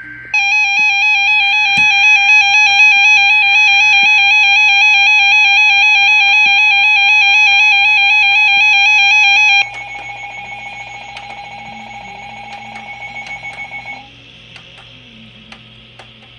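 Weather radio receivers sounding their electronic alert alarms, alerting to a severe thunderstorm warning. A loud, rapidly pulsing beep tone stops about ten seconds in. A second, quieter alarm carries on alone for a few more seconds and then cuts off.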